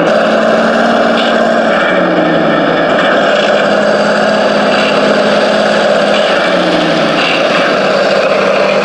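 Remote-control toy vehicle's small electric drive motor and gears whirring steadily, the pitch stepping up and down a little as it is driven.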